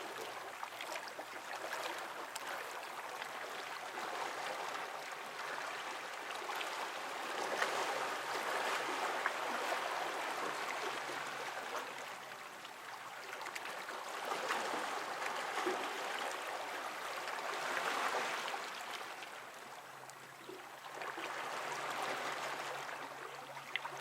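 Moving water, a steady rushing and splashing that swells and eases every few seconds.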